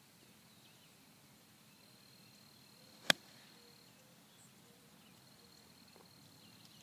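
A 56-degree sand wedge striking the bunker sand just behind the ball in a greenside bunker shot: one sharp impact about three seconds in, over a faint outdoor background.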